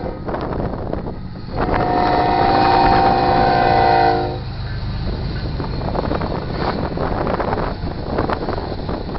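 CSX GE ES44AH locomotive's horn sounding one long chord at a grade crossing, starting about a second and a half in and lasting nearly three seconds. Then the locomotive and loaded covered hopper cars roll past, wheels clattering over the rail joints.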